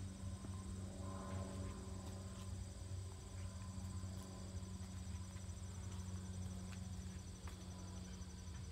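Insects trilling steadily in rapid high-pitched pulses, over a low steady hum.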